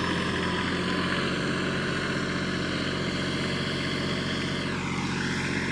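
Tractor engine running steadily while raking hay. About four and a half seconds in, the higher part of the sound drops in pitch.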